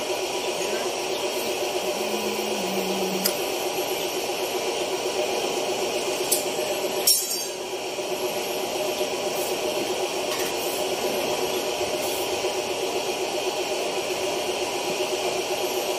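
A steady mechanical hum from running machinery, with a few light metallic clinks.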